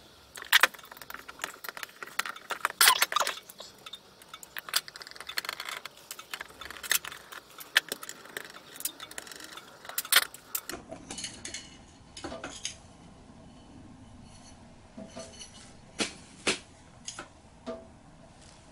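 Small metal parts and tools of a motorcycle carburettor clicking, clinking and rattling against the carburettor body and a stainless steel parts tray as it is taken apart by hand. The handling is busy for about the first ten seconds, then thins to scattered single clicks.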